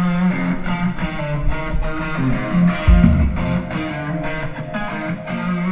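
Guitar-led music with bass, its notes struck in a steady rhythm, played during a band's sound check.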